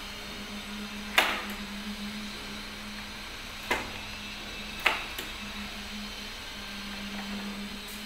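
Three sharp metallic clicks from a Godrej Ultra XL+ Twinbolt rim door lock as its snib lever and latch are worked by hand, the first and loudest about a second in, two more a few seconds later, over a steady low hum.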